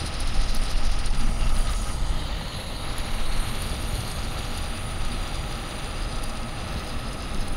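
Steady rumble and road noise of a moving vehicle, with no clear engine note or event standing out.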